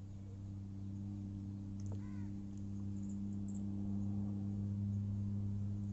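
Steady low electrical hum that slowly grows louder, with a short crow caw about two seconds in.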